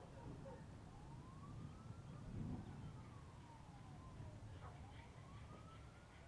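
Distant emergency-vehicle siren wailing, its pitch sweeping slowly up and down every two to three seconds, faint over a steady low rumble.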